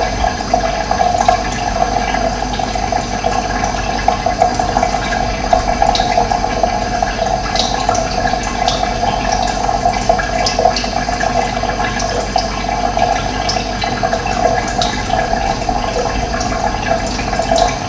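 Running water, a steady gushing flow, with occasional short, faint bird chirps above it.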